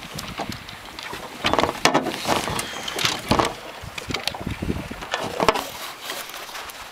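Scattered knocks, clunks and rustling from people moving and handling gear on a fishing boat, mixed with handling noise as the camera is jostled.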